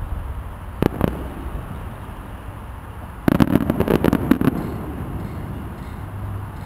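Aerial fireworks: two sharp bangs about a second in, then a rapid crackling volley of many small reports lasting about a second, from a burst of crackling stars.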